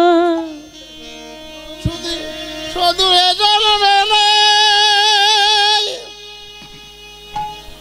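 Kirtan music: a held melodic note fades out just after the start. A single low thump comes near two seconds. From about three seconds in to about six seconds, a long wavering melody note rings out.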